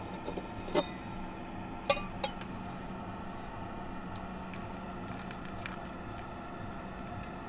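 A few light clinks and taps, the loudest a ringing clink about two seconds in, over a steady low hum.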